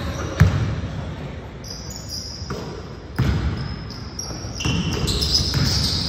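Basketball bouncing on a gym floor, with a sharp thud about half a second in and another about three seconds in. A high-pitched sound comes in over the last second and a half.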